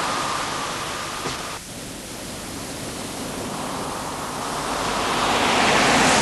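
A steady rushing noise with no clear tone, briefly dipping about a second and a half in and swelling to its loudest near the end.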